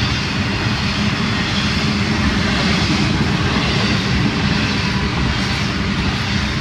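Florida East Coast Railway intermodal freight cars loaded with stacked containers and trailers rolling past: steel wheels on the rails making a loud, steady rumble.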